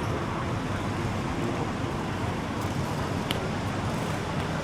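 Steady hum of road traffic with faint background voices.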